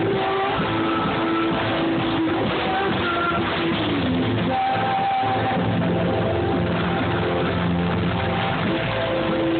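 Live rock band playing, with guitar and bass guitar under long held notes that glide in pitch here and there. It is a poor-quality audience recording, dull and lacking treble.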